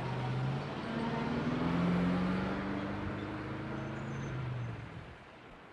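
City bus engine pulling away, its note rising as it speeds up, then fading out as the bus drives off.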